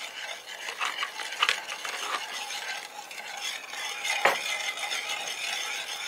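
A spoon stirring a runny marinade in a bowl, with scrapes and small clinks against the bowl. A single sharper knock about four seconds in.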